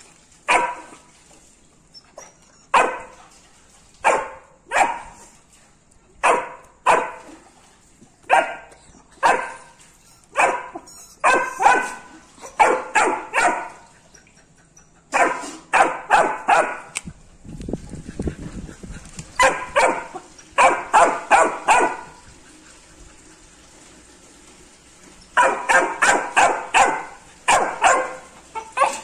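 A puppy barking repeatedly: single barks about a second apart at first, then quick runs of four or five barks in a row, with a few quieter seconds between runs.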